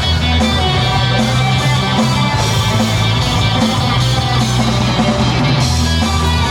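A band playing rock music at a sound check: electric guitar over bass and drum kit, loud and steady.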